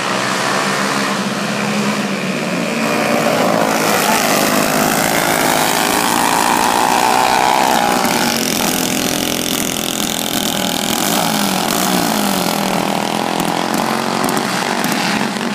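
Small racing go-kart engines running as karts circle the track, their pitch rising and falling as they go by.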